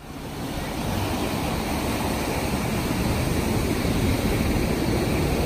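Surf on a sandy beach: a steady rush of breaking and washing waves, fading in over the first second.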